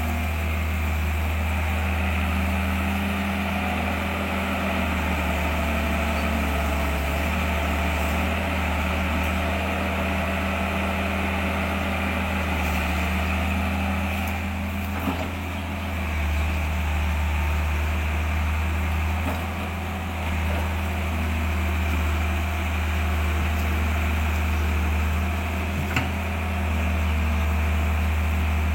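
An engine or motor running steadily at an even hum, with a short sharp knock about halfway through and another near the end.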